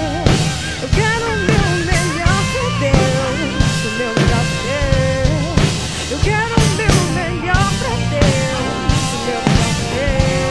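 A band playing an instrumental passage of a pop-rock worship song: a steady drum-kit beat under a lead melody line that bends in pitch.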